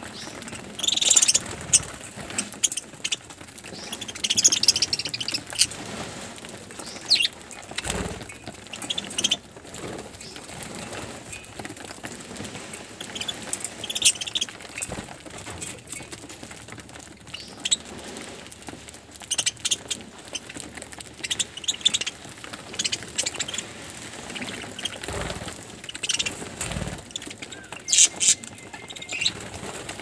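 A flock of budgerigars chattering, with bunches of high chirps coming and going, and wings flapping as birds flutter up and land.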